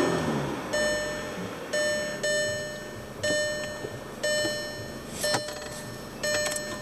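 An electronic ding repeating at the same pitch about once a second, each tone fading away, with a couple of sharp clicks near the end.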